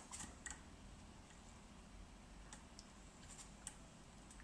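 Near silence, with a few faint scattered clicks and ticks from small metal parts being handled while a wire is soldered onto an RCA plug.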